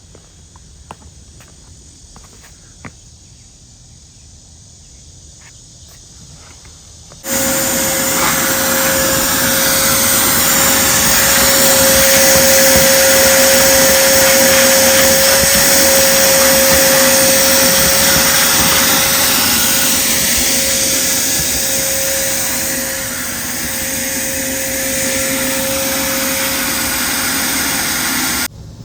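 Pressure washer running: a loud, steady hiss of high-pressure spray with a constant whine from the machine. It starts abruptly about seven seconds in, dips slightly for a moment, and cuts off sharply near the end. Before it starts there are only a few faint clicks.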